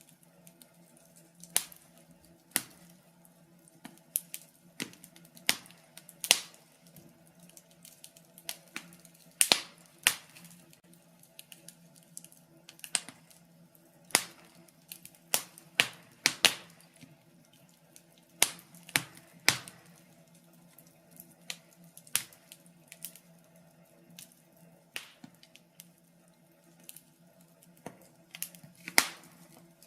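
Wood fire crackling in a fireplace: irregular sharp pops and snaps, about one or two a second, some much louder than others, over a faint steady low hum.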